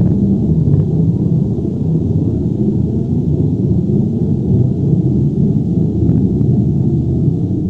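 Earthquake or avalanche rumble sound effect: a loud, steady, deep rumble with little high-pitched content.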